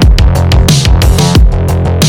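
Background electronic music with a heavy beat: deep bass drum hits that drop in pitch about every 0.7 seconds over a steady bass line, with crisp snare and cymbal hits on top.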